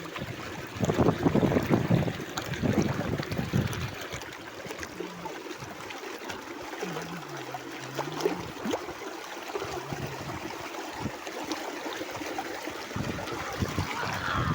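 Running water, a steady rush with louder splashing surges in the first few seconds.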